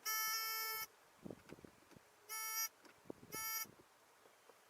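Mac Tools electronic circuit tester beeping: one long beep, then two short beeps about a second apart, each beep signalling that the probe has found power.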